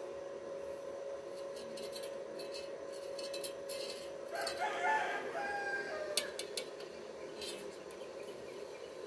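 A bird call, about one and a half seconds long and in stepped pitches, sounds about four seconds in over a steady hum. A few light clicks follow.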